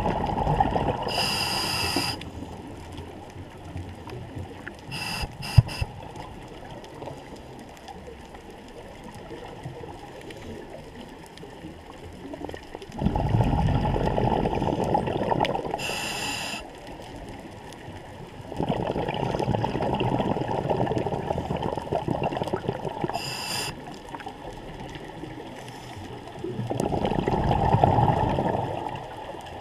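Scuba diver breathing through a regulator, heard underwater: about four slow breaths, each inhalation a short, high hiss from the demand valve and each exhalation a rumble of bubbles lasting a few seconds.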